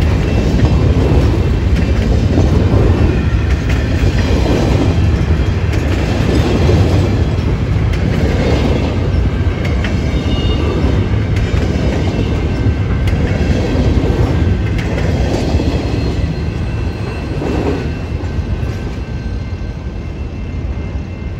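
A freight train of empty intermodal well cars rolling past close by: a steady rumble of steel wheels on rail, swelling about every two seconds as each set of wheels goes by. It eases slightly near the end as the last car passes.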